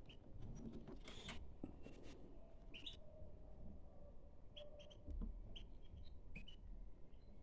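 Faint short chirps from caged European goldfinches, scattered through, with light clicks and rustles from a plastic feeder cup being handled and filled by hand.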